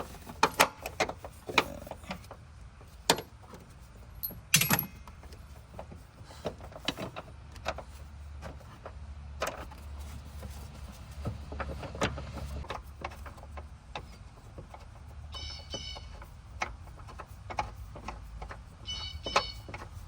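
Scattered metal clinks and knocks of hand tools and a bolt while an engine mount bolt is fitted, over a low steady hum. There are two brief high, rapid rattling sounds, one about two-thirds of the way in and one near the end.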